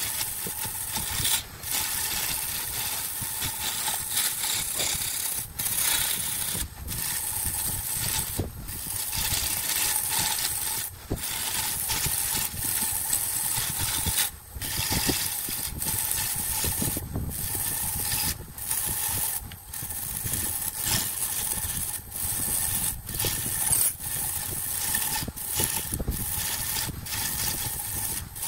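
Wood lathe running with a steady motor whine while a hand-held turning tool cuts a spinning glued-up wooden cylinder, a rough continuous shearing of wood as shavings come off. The sound drops out briefly many times.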